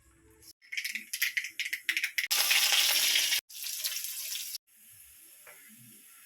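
Kitchen cooking sounds: a quick run of rattling clicks, then a loud rushing hiss like running or splashing water, in two stretches that start and stop abruptly.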